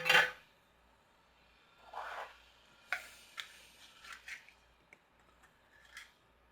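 A few separate light knocks, clicks and scrapes of small hand tools and a circuit board being handled on an electronics workbench, the loudest a knock right at the start.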